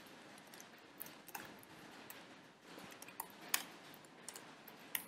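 Faint computer keyboard keystrokes: a handful of separate, sharp key clicks at uneven intervals over a quiet background.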